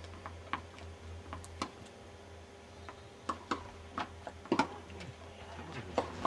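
Tennis balls being struck and bouncing on a hard court: a dozen or so sharp, separate pocks, several coming about every two-thirds of a second in the second half. A low hum underneath stops about a second and a half in.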